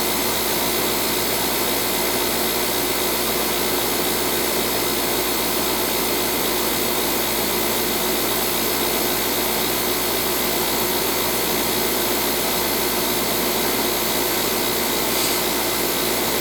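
Central air conditioning unit running: a steady fan whoosh with a faint constant hum, unchanging throughout.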